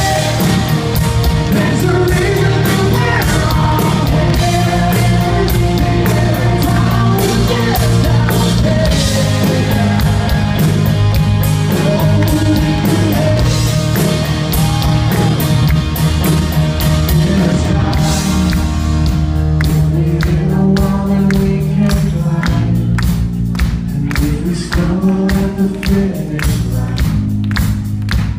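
Live rock band playing, electric guitar over bass and drums, loud in a large hall. About eighteen seconds in the band thins out to a sparser passage while the beat carries on.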